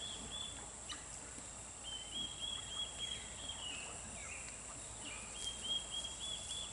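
Faint birdsong: a songbird's trill of quick repeated notes, heard three times.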